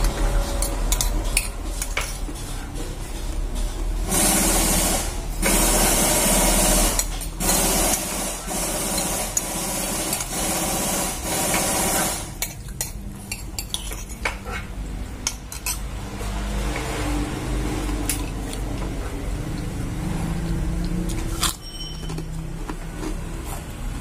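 A metal spoon clinking and scraping against a plate during eating, with many short sharp clicks over a steady low hum. From about four seconds in until about twelve seconds in, a loud rushing hiss covers it.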